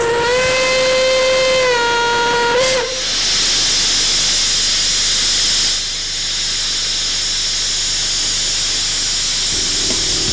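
Steam whistle of a narrow-gauge steam locomotive blowing one steady blast of nearly three seconds, its pitch dipping slightly just before it stops. It is followed by a loud, steady hiss of steam being vented from the engine.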